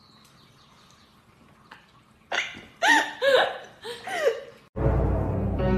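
Several short, high-pitched vocal sounds with arching pitch, about two to four and a half seconds in. Loud background music then cuts in abruptly near the end.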